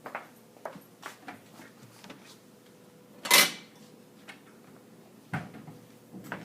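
Light clinks and knocks of a plate and kitchen utensils being handled, with one louder clatter about three seconds in.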